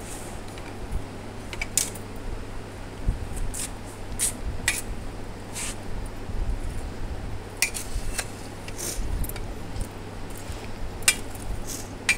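Metal spoon clinking against a steel bowl now and then while stirring chopped watermelon, about ten sharp clinks scattered through, over a steady low hum.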